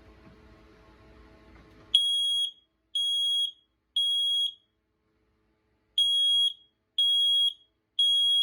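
Kidde i9010 smoke alarm sounding on its test button: a loud, high-pitched steady beep in the temporal-three pattern, three half-second beeps a second apart, a pause, then three more, starting about two seconds in. Before the beeps there is a faint low hum.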